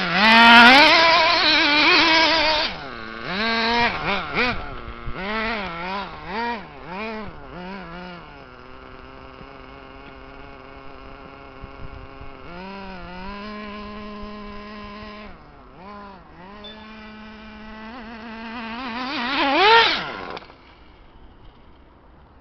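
Reely Rex X 1/8-scale RC buggy's motor revving up and down repeatedly as it is driven, then holding a steady pitch. Near the end it rises sharply in pitch and cuts off suddenly.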